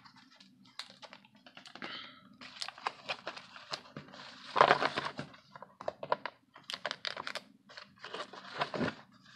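Plastic blister packs of trading-card boosters being handled and shuffled in the hands: irregular clicks, taps and crinkles of stiff plastic against card backing, with a louder rustle about halfway through.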